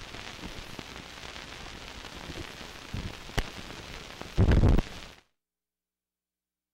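Steady hiss and crackle of an old 16mm film soundtrack running out after the music, with a sharp click about three and a half seconds in and a loud thump near the end, before the sound cuts off to silence.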